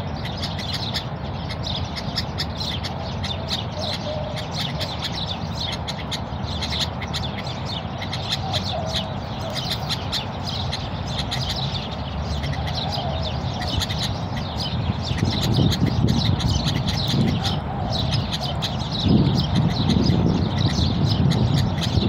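A chorus of small birds chirping, many short high chirps overlapping without a break, over a steady low rumble that grows louder in the second half.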